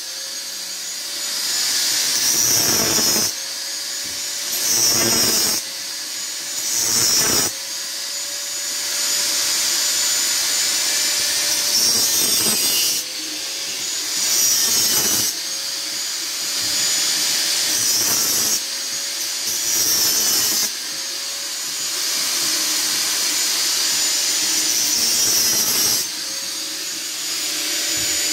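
Electric angle grinder's disc cutting and grinding a metal exhaust pipe in repeated passes, louder each time the disc bites into the steel. Between passes the motor runs free with a steady whine, which sags when the disc is pressed in and rises again on release.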